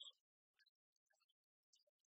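Near silence, with only faint scattered blips.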